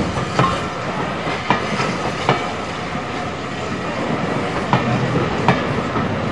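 Railway coaches rolling past close by: a steady rumble with the wheels clicking sharply at uneven intervals over rail joints and pointwork.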